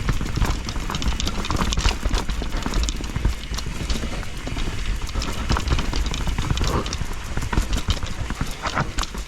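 Enduro mountain bike descending a wet trail: fast irregular rattling and knocking as the wheels run over roots and rocks, over a steady low rumble of wind on the helmet or chest camera microphone.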